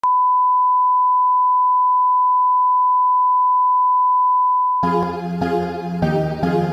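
Steady line-up test tone accompanying colour bars, a single unbroken beep that stops about five seconds in, where keyboard music with repeated chords takes over.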